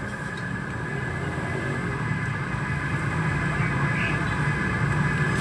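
A motor or engine running steadily: a low hum with a faint higher whine, unchanging in pitch.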